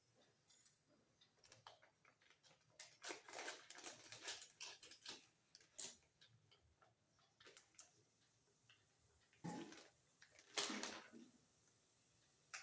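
Faint, scattered clicks and clatters of kitchen utensils and containers being handled, with a sharp click about six seconds in and a louder clatter around ten seconds in.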